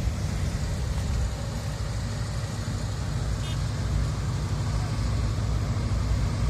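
Car engines idling in a line of waiting cars, a steady low hum.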